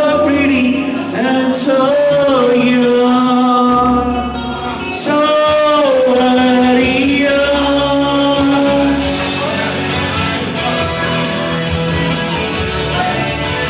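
A man singing through a handheld microphone over backing music, holding long notes and sliding between them.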